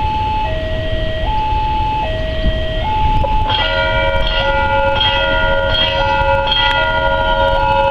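Railway level-crossing warning signal: an electronic two-tone alarm alternating high and low about every 0.7 s. About three and a half seconds in, the crossing's genta warning bell starts ringing over it in several tones with repeated strikes, signalling that a train is approaching.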